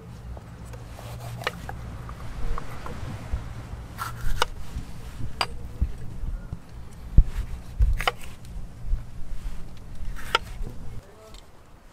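Kitchen knife cutting a yellow bell pepper on a wooden cutting board: about half a dozen sharp knocks, a second or more apart, as the blade goes through and meets the board. A low steady rumble runs underneath and cuts off near the end.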